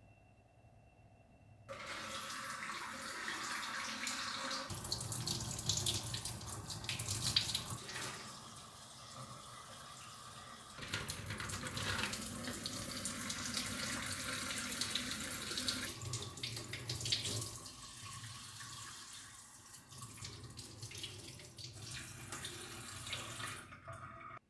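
Kitchen tap running into the sink while fruit is washed, the splashing rising and falling as the stream hits the produce. It starts about two seconds in and stops just before the end.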